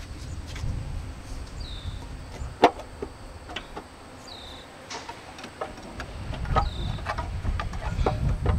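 Sharp metallic clicks and knocks of parts and hand tools being handled on top of a Honda H22 engine during teardown, the loudest about a third of the way in. A short high falling chirp repeats every couple of seconds, over a low rumble that is stronger at the start and near the end.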